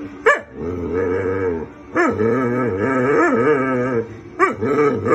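A dog "talking": drawn-out, moaning vocalizations whose pitch wavers up and down like speech. There is a short sharp yelp at the start, then two long calls of a second or two each, then shorter ones near the end.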